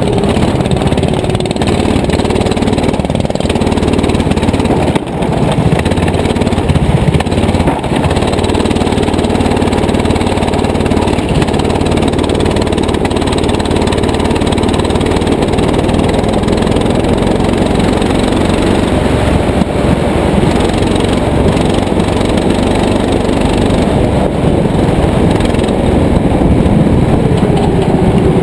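Go-kart engine running hard, heard from on board the kart, its pitch falling and rising as the driver lifts off and accelerates through the corners.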